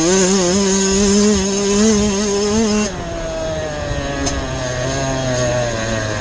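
Motocross dirt bike engine running hard at high revs, which waver briefly and then hold steady. About three seconds in the throttle is closed and the engine note drops, then keeps falling slowly as the bike rolls on.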